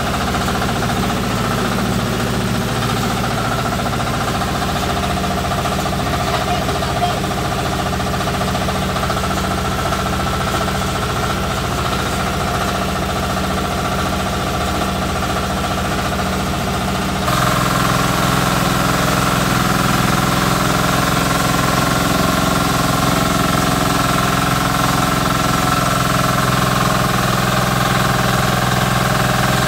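Small stationary engine running steadily at a constant speed, driving a belt-driven rice milling machine. The sound steps up abruptly to a louder, slightly different note about 17 seconds in, then holds steady.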